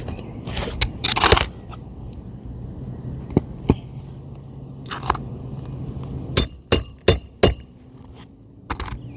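Hand hammer driving a roofing nail through a double layer of shingles into the roof decking: four sharp, ringing strikes about a third of a second apart past the middle, after some scraping and rustling of shingles.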